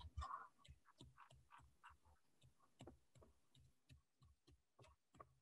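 Near silence with faint, irregular clicks of a metal fork tapping and scraping in a bowl as ripe bananas are mashed.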